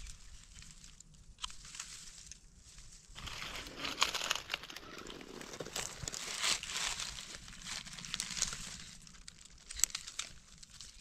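Dry fallen leaves and grass crackling and crunching under gloved hands rummaging through the leaf litter. The crackling is sparse at first and grows dense about three seconds in, with many sharp crackles.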